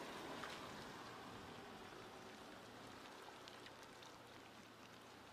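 Faint crackling splatter of a Range Rover Sport's tyres working slowly through wet mud, over a faint, steady low engine hum; it slowly fades.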